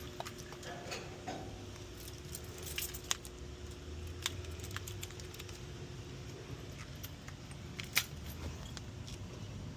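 Scattered small metallic clicks and clinks of hand tools and parts while an air-conditioner capacitor is being installed, the sharpest one near the end, over a steady low hum.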